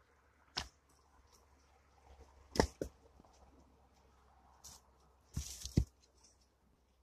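Split birch firewood being picked up and set down, the pieces knocking against each other in a few sharp wooden knocks. The loudest comes about two and a half seconds in, with a short cluster of knocks and rustling near the end.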